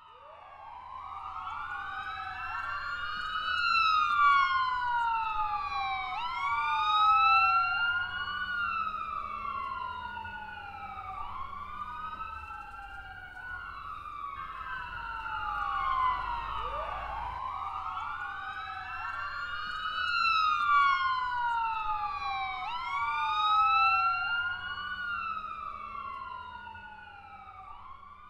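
Several sirens wailing at once, each rising and falling over about two seconds and overlapping one another, over a faint low rumble. The sound fades out near the end.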